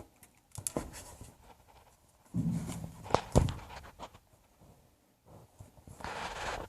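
Handling noise from a polymer AK pistol grip being pushed and worked against the rifle's trigger guard: scraping and rubbing with a few sharp clicks and knocks, the grip not yet fitting over the guard.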